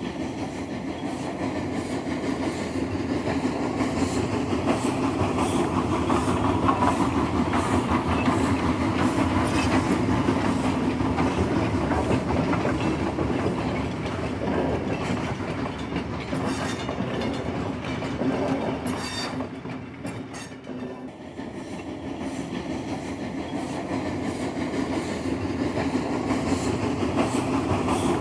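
A train running along the track: a steady rumble with wheel clicks over the rail joints. It eases briefly about twenty seconds in, then builds again.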